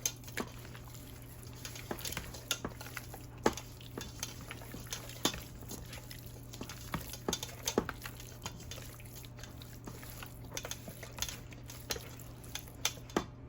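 A utensil clinking and scraping against a baking sheet as seasoned chicken is turned in oil, in irregular sharp clicks throughout, over a steady low hum.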